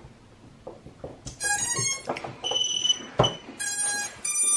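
Brushless motors of an FPV quadcopter playing the ESC start-up tones as the quad powers up: about four short beeping notes of different pitches, starting a little over a second in. A sharp handling click sounds in the middle.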